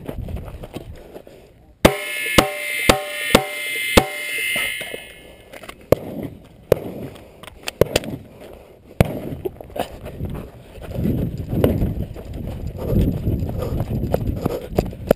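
Five rapid pistol shots from a .45 ACP Glock 21, about half a second apart starting some two seconds in, each followed by a brief metallic ring. After them come rustling movement noise and scattered quieter knocks and clicks.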